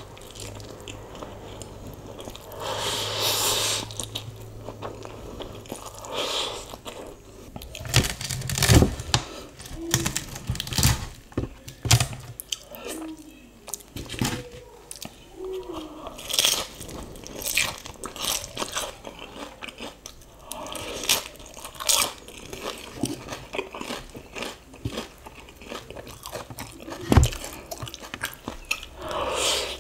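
Close-miked eating of chili-oil instant noodles: a mouthful of noodles slurped in a few seconds in, then chewing with wet mouth smacks and sharp clicks, a few of them louder.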